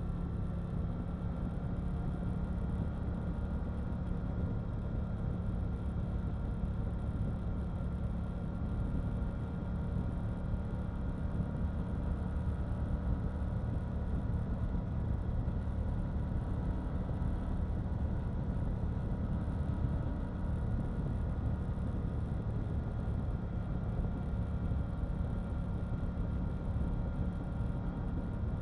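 KTM 890 Duke R's 889 cc parallel-twin engine running steadily, the revs holding nearly constant with no big revving or shifts.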